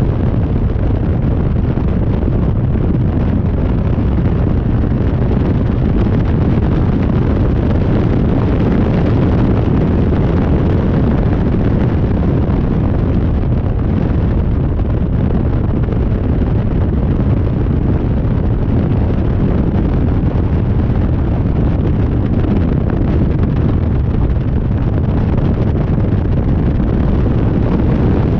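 Heavy wind buffeting on the microphone of an onboard camera in the open cockpit of a KTM X-Bow at track speed, over the sound of the car running hard. Loud and steady.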